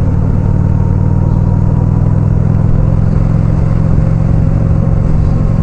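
2005 Honda Shadow's V-twin engine running steadily at cruising speed, a low even drone under road noise.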